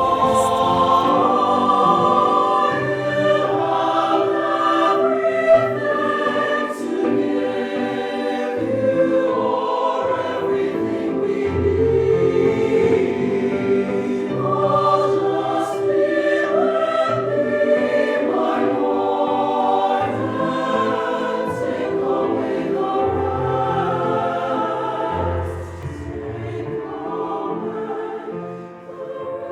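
Youth choir singing a slow hymn in several-part harmony with long held notes, growing softer near the end.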